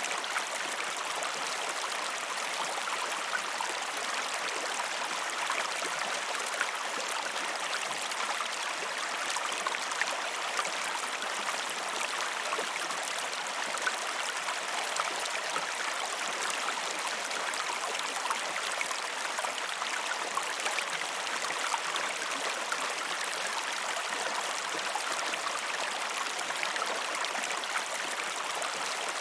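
Flowing river water, a steady, unbroken rush with many small splashes and gurgles.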